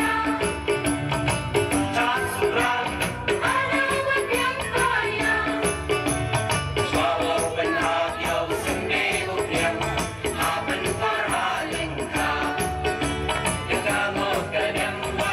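Dance music from a loudspeaker: voices singing a folk tune over a steady, fast shaken-rattle percussion beat.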